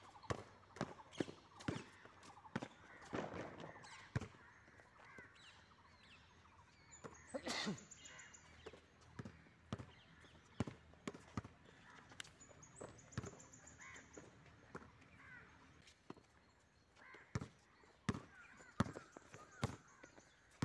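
Basketball bouncing on a concrete court and players' footsteps, a run of sharp, irregular thuds.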